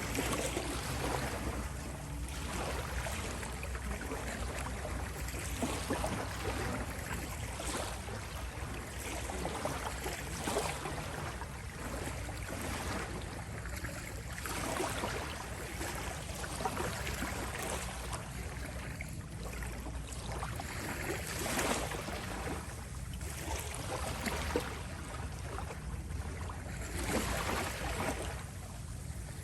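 Ocean waves washing in and drawing back, surging every few seconds over a steady low hum.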